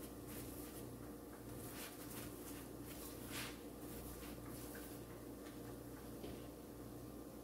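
A spoon spreading ghee over a chapati in a cast-iron pan: faint, short scrapes, the loudest about three and a half seconds in, over a steady low hum.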